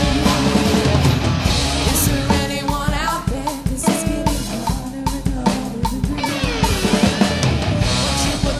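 Rock band playing an instrumental stretch without vocals, the drum kit to the fore with kick and snare hits over the rest of the band.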